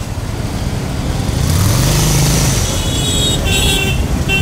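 Busy road traffic: motorcycle and car engines running, with one engine swelling and fading about two seconds in. Short repeated vehicle horn beeps near the end.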